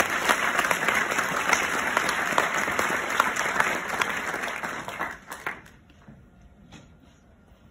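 Audience applauding: dense clapping that dies away about five and a half seconds in, leaving a few faint knocks.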